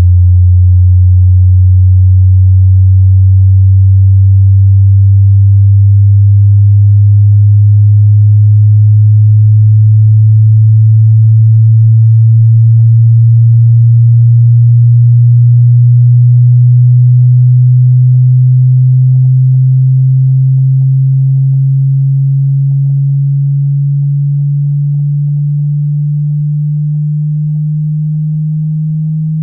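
A pure sine test tone for a hearing test, very low and hum-like, rising slowly and steadily in pitch and growing somewhat quieter over the second half.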